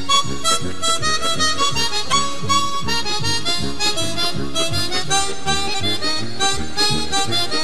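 Background music: a harmonica playing a melody over a steady rhythmic accompaniment.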